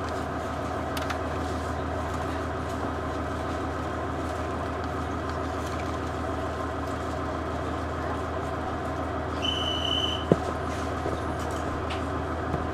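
Diesel engine of a KiHa 110-series railcar running steadily, heard from inside the car as a low, even hum. About nine and a half seconds in, a short high beep sounds, followed by a sharp click.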